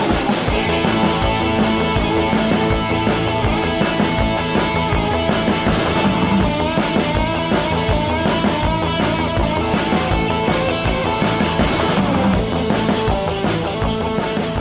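Background rock music with guitar and a steady drum beat, beginning to fade near the end.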